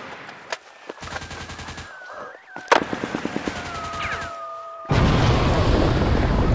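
Two bursts of rapid automatic gunfire with a single louder shot between them. About five seconds in, a loud rush of wind on the microphone takes over.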